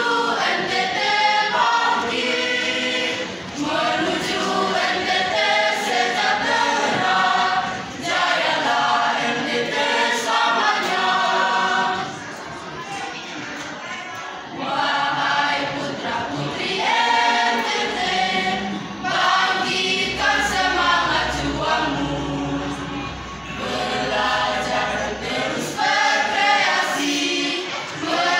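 Mixed choir of teenage students singing a march song together, with a softer passage about halfway through.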